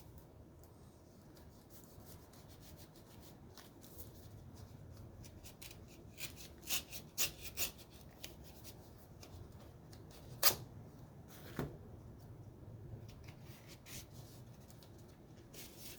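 Paper card and envelope handled and opened: soft rubbing and rustling with scattered sharp crackles and clicks, the loudest about ten seconds in.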